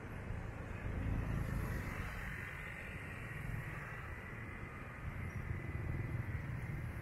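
Street traffic: vehicle engines running and passing by, the low rumble swelling about a second in and again near the end.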